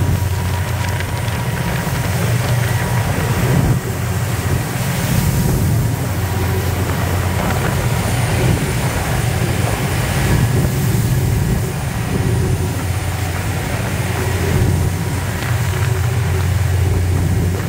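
Fishing boat's engines running steadily at cruising speed with a loud, low drone, and water rushing and splashing along the hull.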